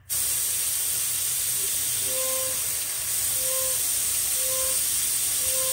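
Compressed air and water blasting out of a bus air tank's drain valve, opened suddenly: a loud, steady hiss. The water coming out has oil mixed in, a sign of the failed air compressor and the air dryer that is not working. A faint short beep repeats about once a second from about two seconds in.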